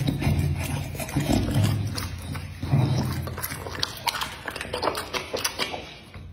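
A bully dog chewing food with wet smacking of its lips and tongue, and snorting breaths through its short nose between the chews. It is a run of sharp smacks and clicks that tails off near the end.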